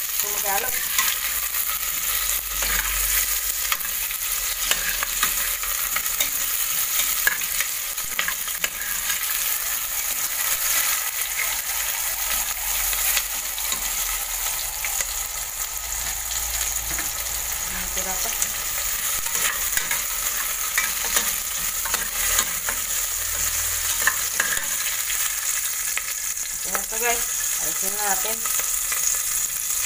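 Sliced onions sizzling in an aluminium pressure-cooker pot on a gas stove, a steady frying hiss, while a metal spoon stirs them and clicks and scrapes against the pot.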